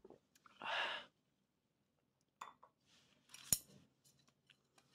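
A short breathy exhale about a second in, then a few light clicks of tableware and one sharp clink about three and a half seconds in.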